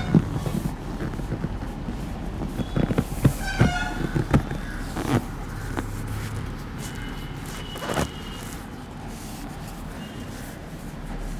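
Vehicle horns honking briefly a few times over steady street traffic noise, with several sharp taps or knocks in between.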